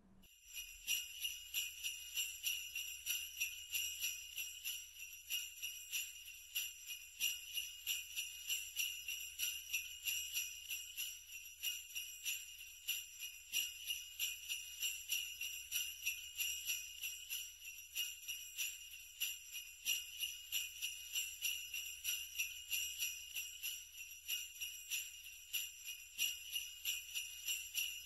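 Sleigh bells jingling in a steady, quick rhythm.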